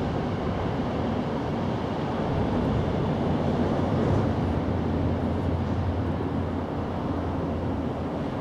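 Steady low rumbling background noise that swells a little in the middle and eases off again.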